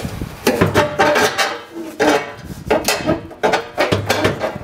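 A new stamped-metal fuel tank clanking and knocking against the car's trunk floor as it is shifted and pressed by hand into place, with a string of sharp knocks and brief metallic ringing.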